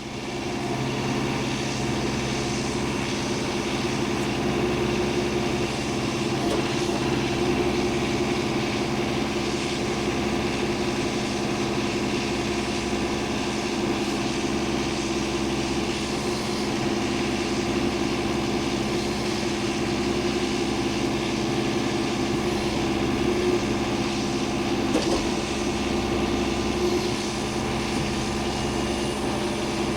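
An engine running steadily at an even speed, with no rise or fall in pitch.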